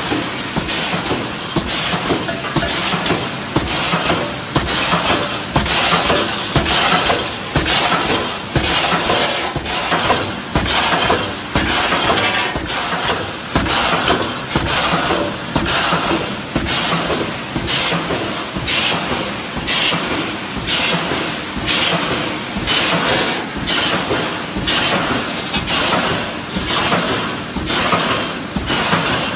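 Automatic wire-mesh resistance welding machine running at speed: a sharp metallic clatter repeating about once a second, one stroke per weld cycle of the electrode row, over a steady noisy hiss.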